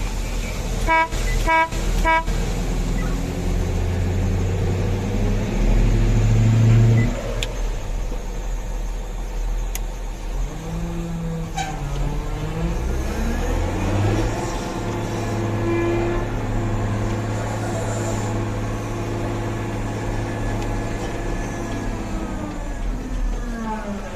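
Diesel engines of heavy road-building machinery running and working, their pitch rising and falling. The loudest rev-up comes around six to seven seconds in, and long changes in pitch follow later. About a second in there are three short horn toots in quick succession.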